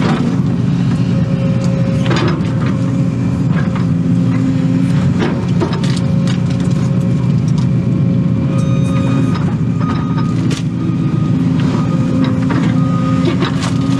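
Case excavator's diesel engine running steadily under digging load, heard from inside the cab, with hydraulic whine and scattered sharp cracks and knocks as the bucket rips out tree stumps and roots.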